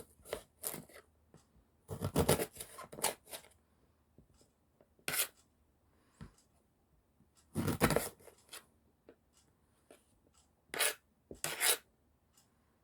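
Knife cutting eggplant into small pieces on a cutting board: short bursts of slicing and rubbing strokes, about five of them with pauses in between.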